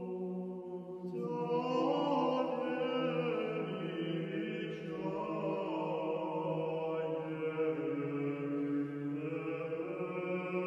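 Orthodox church chant: voices singing a slow melody over a steady held low drone note.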